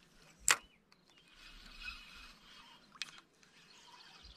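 A sharp click about half a second in and a weaker one about three seconds in, over faint bird chirping.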